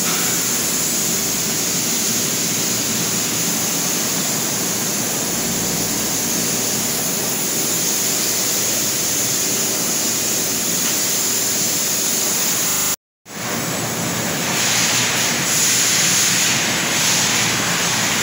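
Steady loud rushing noise with a low hum from running equipment. It drops out abruptly for a moment about 13 seconds in, then carries on.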